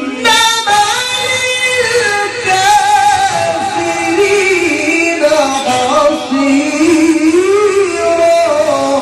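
A male qari reciting the Quran in a high register: one long, ornamented melismatic line, the pitch bending and wavering continuously with a trill-like quiver on held notes, in the melodic maqam style of tilawah.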